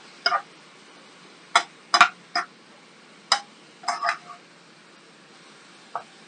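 A spatula scraping and clicking against a frying pan while cauliflower and meat are stir-fried, about seven short strokes at uneven intervals over a steady faint hiss.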